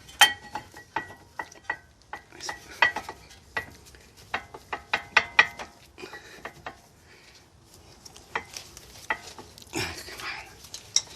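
Light metal clinks and taps with short ringing: steel-backed brake pads and their wear-indicator tab clicking against the caliper and its clips as the new pads are fitted. A louder knock comes near the end.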